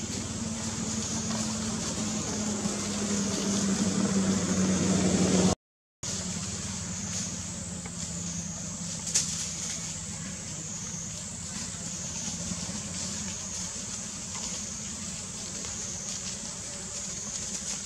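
A steady low hum that grows louder over the first five seconds, under a constant high-pitched buzz. The sound cuts out completely for a moment about five and a half seconds in, then carries on as a quieter steady background with a few faint clicks.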